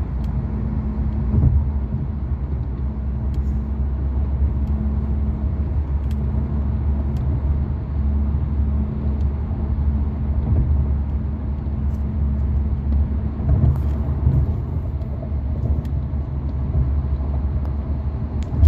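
Steady road noise heard from inside a moving car on a freeway: a low rumble of tyres and engine with a steady low hum.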